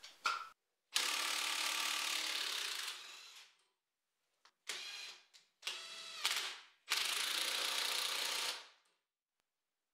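Makita cordless impact wrench hammering on the pinion nut of a Dana 30 axle in four bursts, the first and last the longest, as it draws the pinion and yoke down to take the slop out of the pinion.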